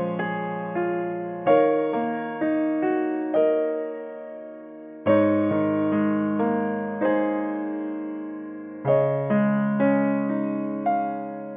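Background piano music: slow notes struck and left to fade, with a new chord every few seconds.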